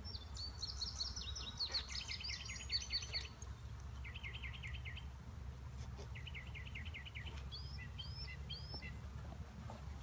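Birds singing: a short, rapid trill repeated every couple of seconds, with higher chirps near the start and short rising notes near the end.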